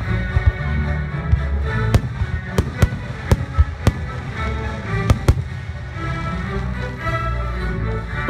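Aerial firework shells bursting with sharp bangs, about ten of them, several in quick succession between two and four seconds in and a close pair about five seconds in, over music playing throughout.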